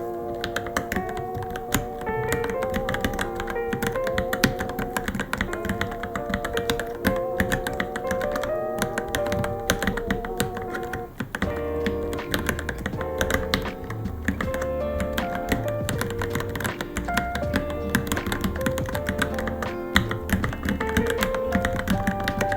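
Continuous fast typing on a Varmilo Minilo mechanical keyboard, a dense irregular run of key clicks, over background music with a melody.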